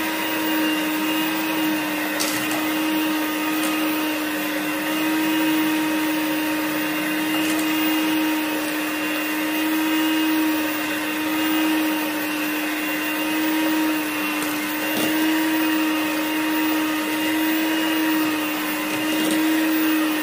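Electric hand mixer running on low speed, its beaters turning through cake batter in a stainless steel bowl, with a steady motor hum that holds one pitch throughout.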